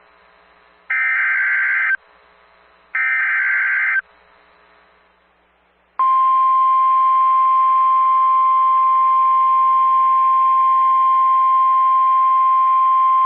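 Emergency Alert System header over weather radio: two one-second bursts of harsh data screech a second apart, then, about six seconds in, a single steady high-pitched alarm tone that holds, the NOAA Weather Radio warning alert tone that comes before a National Weather Service warning.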